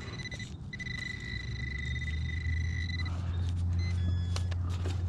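Metal detector sounding a steady high-pitched tone over a large buried piece of iron. The tone breaks off briefly about half a second in and stops about three seconds in, while a low rumble builds underneath.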